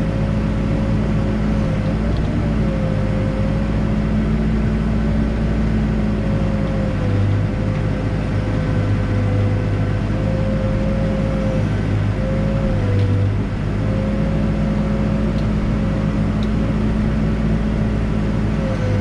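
Backhoe's diesel engine and hydraulics running steadily while digging, with a whine that dips in pitch now and then and a deeper hum that grows louder for a few seconds near the middle as the machine takes load.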